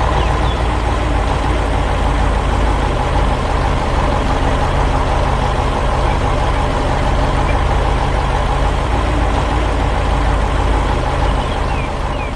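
Heavy diesel engine of a telehandler running steadily, a low, even drone.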